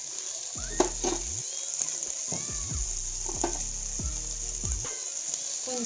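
Chopped onions sizzling steadily in hot oil in an aluminium kadai, with one sharp metal clink about a second in.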